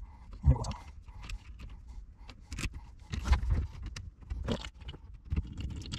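Irregular small metallic clicks, scrapes and knocks of wire ring terminals and a hand tool being worked at a battery's positive terminal, as a new wire is slipped under it.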